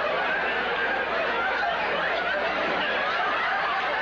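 A studio audience and cast laughing together in one long, unbroken laugh at a steady level.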